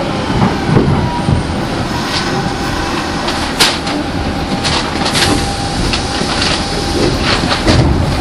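Nagoya Municipal Subway train running between stations, heard from inside the car: a steady rumble of wheels on rail with irregular clicks and knocks from the track.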